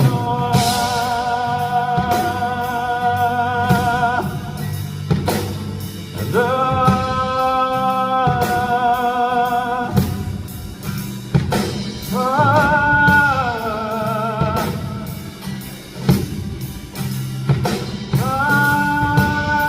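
Live band music: a male singer holds four long, wavering notes over a drum kit and bass.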